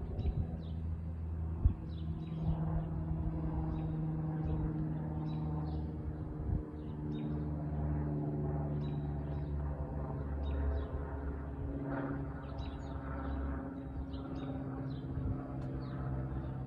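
Distant outdoor tornado warning siren sounding a steady tone with overtones, its pitch drifting slightly. Songbirds chirp over it throughout.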